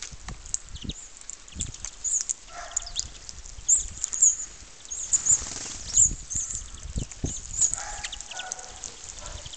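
Many small birds chirping: a steady stream of short, high-pitched chirps, with two lower calls about three and eight seconds in and a few low thumps.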